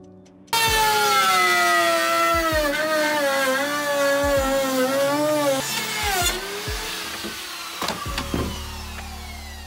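Handheld router with a straight bit trimming excess siding board flush. Its high motor whine starts abruptly about half a second in and wavers and dips in pitch as the bit cuts. In the last few seconds the pitch falls steadily and the sound fades as the router winds down.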